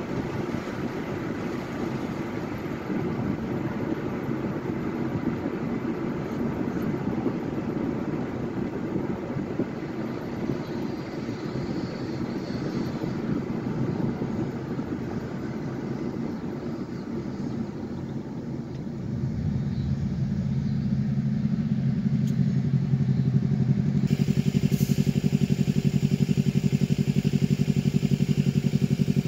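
Road and tyre noise of a car driving, heard from inside the cabin, giving way about two-thirds of the way through to a steady low engine hum as the car slows and stops at an intersection.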